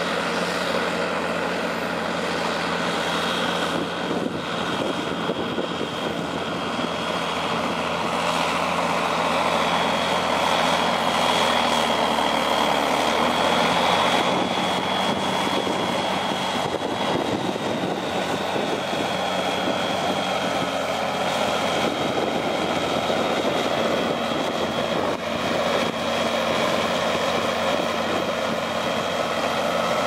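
Fendt 936 Vario tractor's six-cylinder diesel engine running steadily while pulling an eight-furrow reversible plough, with a steady high whine over the engine note. It grows louder toward the middle as the tractor passes closest.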